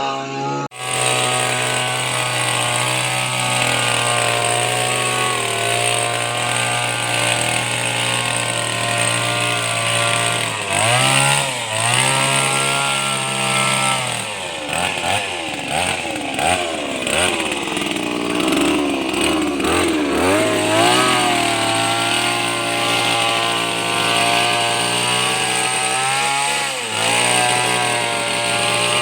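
Kamatsu HT230 two-stroke petrol hedge trimmer running at high revs. Its pitch dips and comes back up several times, around the middle and again near the end.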